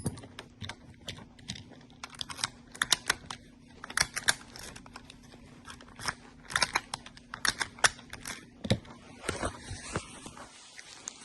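Irregular clusters of small metallic clicks and rattles from an Acura/Honda ignition lock and its housing being handled and worked by hand on the bench, over a faint steady hum.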